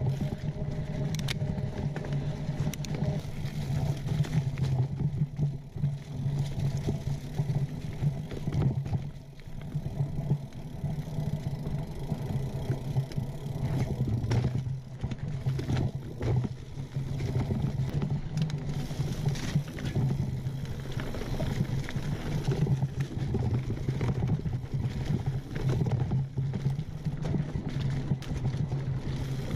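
Mountain bike rolling over a dirt and leaf-covered trail, with tyre noise and frequent rattles and knocks from the bike over bumps.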